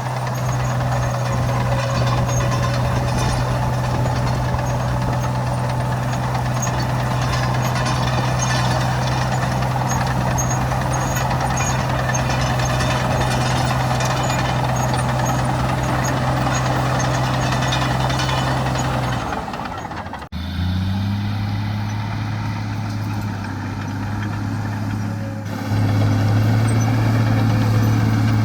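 Heavy diesel engine of earthmoving machinery running steadily. About two-thirds of the way through, the sound cuts abruptly to a different engine note, which gets louder near the end.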